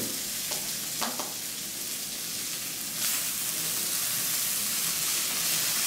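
Oil sizzling in a frying pan as fish fillets and courgette pieces fry, with a few light taps of wooden chopsticks turning them in the first second or so. The sizzle gets a little louder about three seconds in.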